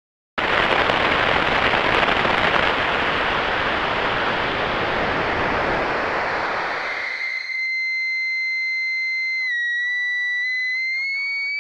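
Four-layer granular synthesizer instrument in UVI Falcon: a wash of noise starts abruptly and is slowly filtered down over about seven seconds into a steady high tone with several partials, which starts gliding upward near the end.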